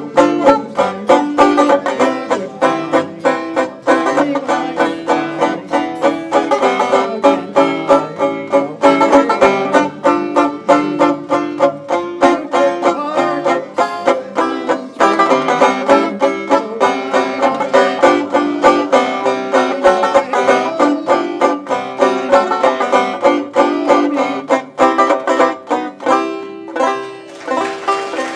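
Banjo being picked, a quick, steady run of plucked notes playing a tune.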